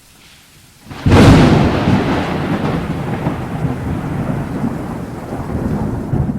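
A sharp thunderclap about a second in, followed by rumbling that slowly fades.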